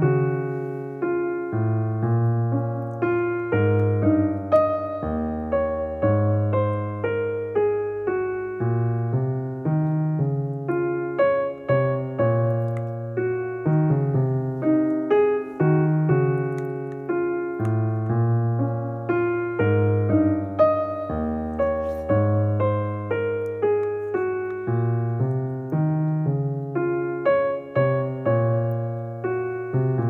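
Background piano music: notes struck one after another and fading, over a recurring low bass line.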